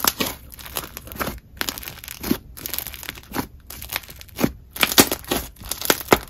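Creamy clay slime with bingsu beads being squeezed and pressed by hand, giving irregular crunches and bubble pops.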